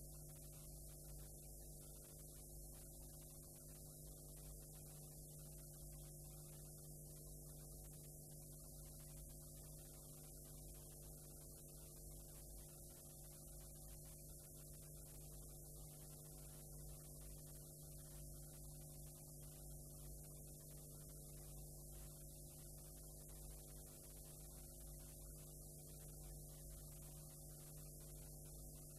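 Near silence: a faint, steady low electrical hum under a soft hiss, the noise floor of a blank stretch of videotape with no programme sound.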